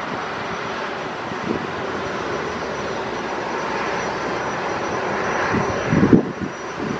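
Jet aircraft engine noise at an airport: a steady rushing roar that grows slightly louder, then cuts off abruptly about six seconds in.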